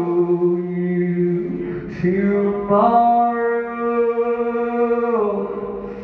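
Unaccompanied male voice singing long held notes. A low note is held, there is a brief break about a second and a half in, then a higher note is held and fades near the end.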